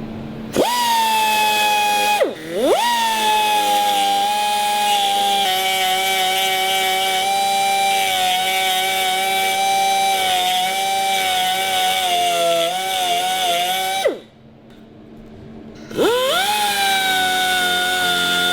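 High-speed grinder whining as it runs on metal, its pitch sagging slightly under load. It spins up, is briefly let off and restarted about two seconds in, stops at about fourteen seconds and spins up again two seconds later.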